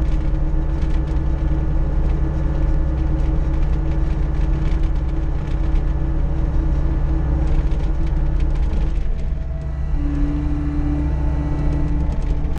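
John Deere 325G skid steer's diesel engine running steadily under load, with a scatter of small clicks and rattles over it; the engine's pitch shifts about ten seconds in.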